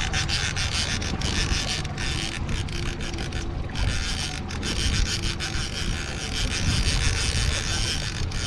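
Wind rushing over the microphone above a steady low rumble from the boat's outboard motor and the water, as the boat trolls.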